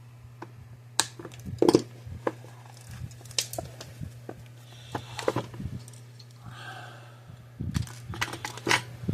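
Small plastic tabs being clipped and snapped off a circuit board: a series of sharp clicks and snaps, the loudest a little under two seconds in and a cluster near the end, over a steady low hum.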